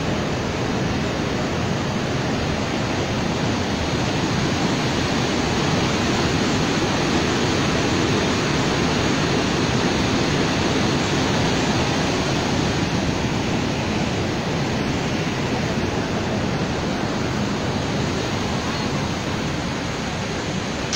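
Water pouring through open dam spillway gates, a steady, unbroken rushing noise.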